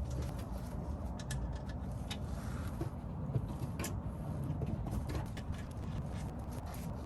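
Scattered light clicks and knocks of hand tools working on the fuel pump assembly's fittings, over a steady low rumble.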